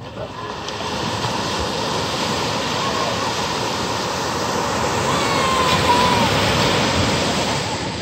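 Small waves breaking on a sandy beach and washing up the shore, the rush of water swelling to its loudest about six seconds in and then easing off.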